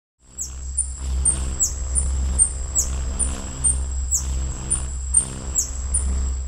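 Hummingbird hovering, its wings making a steady low hum, with very high, thin chirps several times a second and a sharper downward squeak about every second and a half.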